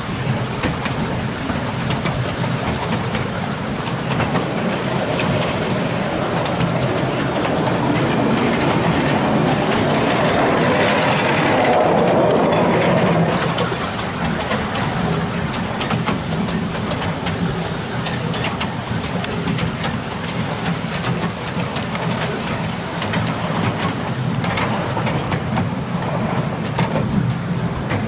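A 7¼-inch gauge miniature railway train on the move, heard from a carriage: the diesel locomotive's engine running steadily, with frequent clicks of the wheels on the track. The sound swells louder about a third of the way in and drops back about halfway through.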